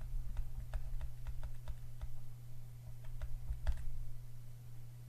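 Stylus tapping and scratching on a graphics tablet during handwriting: irregular light clicks, several a second, thinning out near the end. A steady low hum lies underneath.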